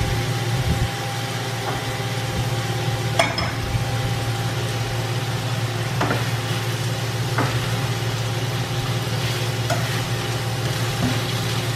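Marinated chicken pieces sizzling as they brown in oil in a stainless steel skillet, turned over with a plastic spatula that scrapes and knocks against the pan a few times. A steady low hum runs underneath.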